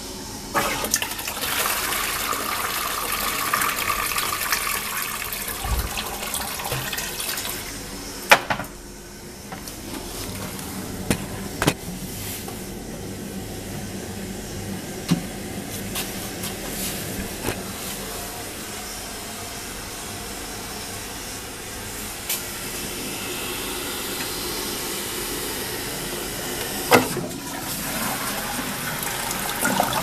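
Push-button dual-flush toilet flushing: water rushes into the bowl for about eight seconds, then the cistern refills with a steady hiss. A few sharp knocks come through along the way.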